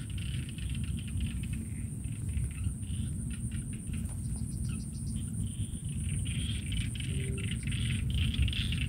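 Outdoor field ambience: insects trilling steadily at a high pitch over a low rumble, with scattered light clicks and rustles.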